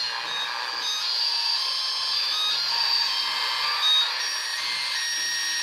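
Handheld portable radio hissing with static, with brief faint whistling tones coming and going.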